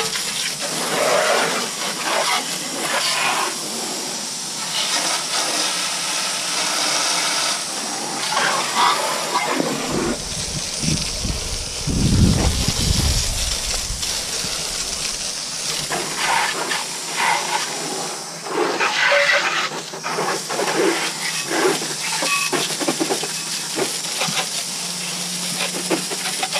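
Garden hose spray nozzle jetting water onto a muddy ATV: a steady hiss of spray splattering on the body, frame and wheels, rising and falling as the stream is moved around, with a deeper rushing for a few seconds around the middle.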